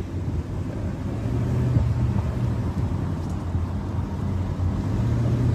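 Car engine and road noise heard from inside the cabin of a slowly moving car: a steady low hum with rumble.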